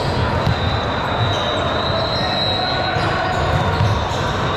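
Echoing ambience of a busy gym during a volleyball match: a steady hubbub of voices with scattered thuds of balls bouncing on the hardwood floor.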